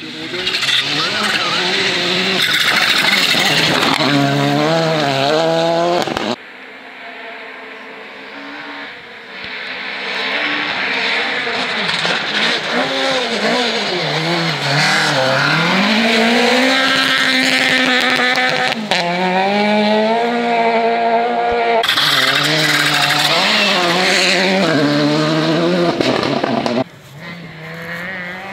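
Rally car engine revving hard on a gravel stage, its pitch climbing and falling repeatedly through gear changes as the car slides past. The sound breaks off abruptly twice, where one pass gives way to the next.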